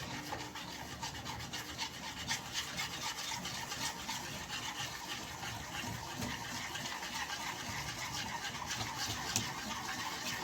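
A utensil stirring béchamel sauce quickly in a pan, scraping rapidly and steadily against the pan to keep the freshly added eggs from setting.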